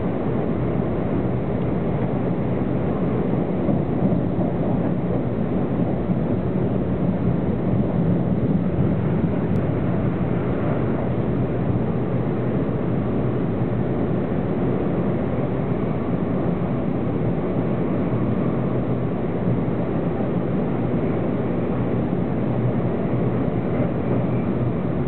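Keisei New Skyliner (AE-series electric express train) running at speed, heard from inside the passenger cabin: a steady, even low rumble of wheels on rail and running gear with a faint hum.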